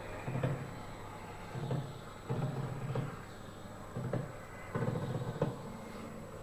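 A run of dull knocks and thuds, roughly one a second at an uneven pace, over a steady low hum.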